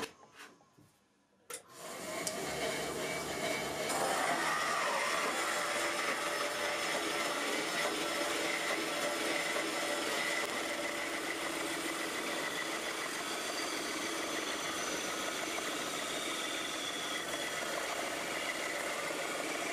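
Shop-built variable-speed band saw with a metal-cutting blade running and sawing through half-inch steel plate: a steady machine hum with blade noise. It starts about two seconds in, after a brief silence, and gets louder around four seconds as the blade bites into the steel.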